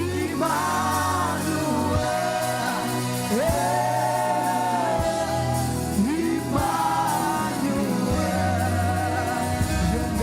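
Gospel worship music: voices sing long held notes that slide up and down in pitch, over a steady bass accompaniment.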